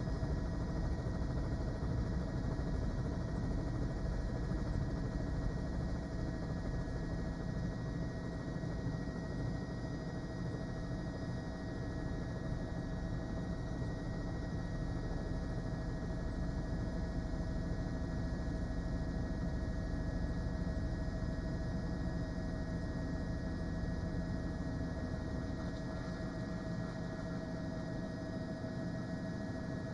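Steady engine hum of a news helicopter, with a few unchanging whining tones over a low rumble.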